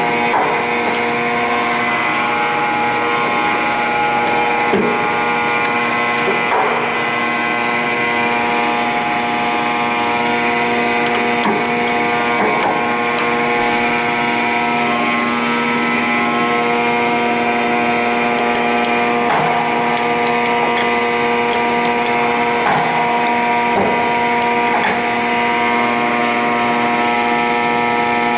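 Clausing Boravia SUS63H2000 engine lathe running at a steady speed: a constant whine made of many pitches at once, with occasional light clicks.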